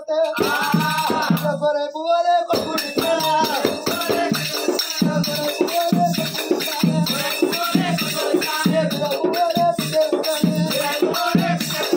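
Oggu Katha folk music: a barrel drum beats a steady fast rhythm with jingling metal percussion over it, and a male voice sings along. The drumming starts about half a second in, breaks briefly, then runs on continuously from about two and a half seconds in.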